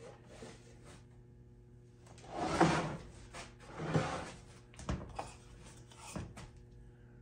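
Small wooden drawers of a machinist's chest sliding in and out, wood rubbing on wood, several times over. The loudest slide is about two and a half seconds in, with a sharp knock near five seconds as a drawer seats.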